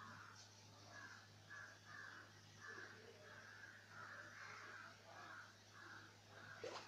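Crows cawing faintly over and over in a long, irregular series, about two caws a second, over a steady low hum. A brief sharp rising squeak comes near the end.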